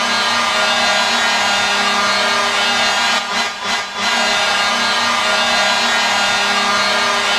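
Ottawa 67's arena goal horn: one loud, steady, buzzy horn blast held for several seconds, briefly dipping twice about three and a half seconds in.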